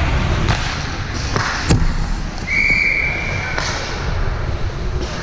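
A short, steady whistle blast from a referee's whistle about two and a half seconds in, after a single sharp knock about a second and a half in, over the steady noise and voices of a game.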